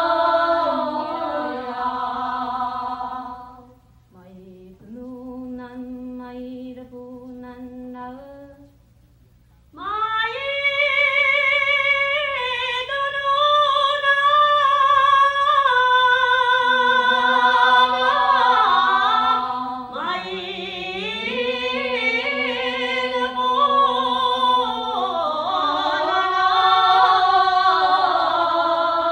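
A woman singing unaccompanied, with long held notes that slide between pitches. About four seconds in she drops to a soft, sparse passage, and about ten seconds in she comes back at full voice.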